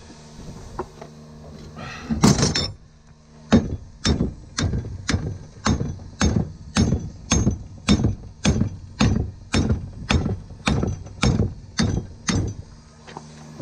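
A hammer striking a red-hot steel bar clamped in a leg vise, bending it over. There is a clatter about two seconds in, then a steady run of about seventeen sharp blows at just under two a second.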